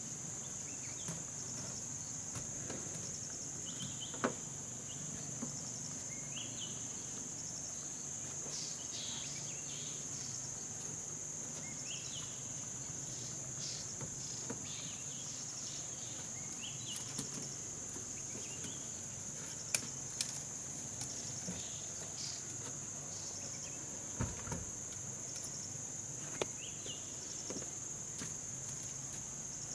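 Steady high-pitched drone of an insect chorus, with scattered short chirps and a few sharp clicks or knocks.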